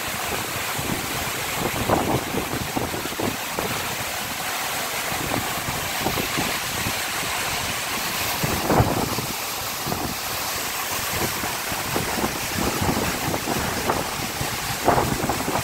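Waterfall and white water rushing over boulders, a steady roar of falling water. Spray-laden wind buffets the microphone in a few short thumps, the strongest about nine seconds in.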